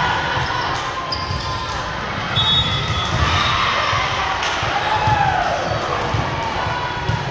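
Basketball game in a gym: repeated dribbling thuds of the ball on the floor under a steady hubbub of crowd and player voices echoing in the hall, with a few short high squeaks.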